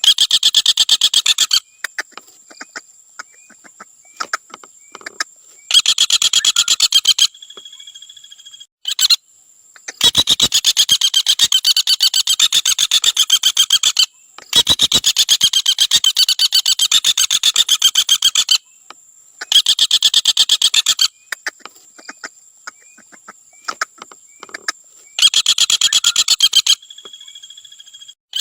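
Common flameback woodpecker giving its fast rattling trill call over and over, in runs of about one and a half to four seconds, with scattered single sharp notes between them.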